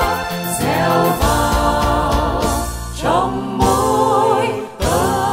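A Vietnamese Catholic hymn sung with instrumental accompaniment: long held notes with vibrato, broken by short pauses between phrases.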